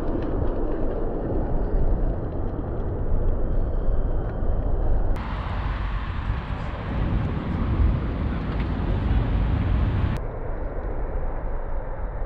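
City street traffic noise: cars driving past, heard through a camera microphone. The sound is duller in the first five seconds and the last two, and brighter in between, changing abruptly at each cut.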